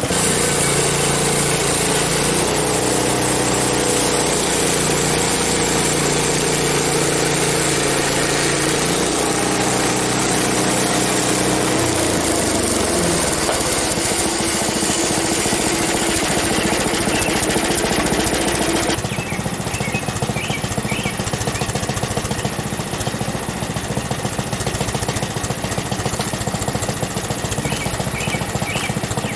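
Frontier OS23 portable bandsaw sawmill running through a log: a steady engine note with blade noise over it. The engine note sinks about 12 seconds in, and about 19 seconds in the sound changes and drops a little in level.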